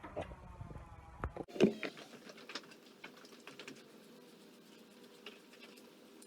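Scattered light scratching and clicking: a grooming brush working through a miniature Shetland pony's thick, shedding winter coat.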